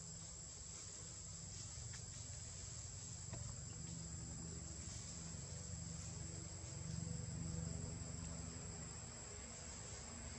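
Insects droning steadily in the forest, one unbroken high-pitched tone. A low rumble sits underneath and gets a little louder about seven seconds in.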